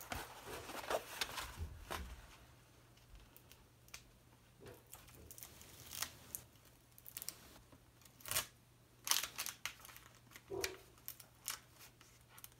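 Crinkling and crackling of a diamond painting canvas's clear plastic film and paper backing as the rolled canvas is flattened and handled, in irregular short rustles that get busier near the end.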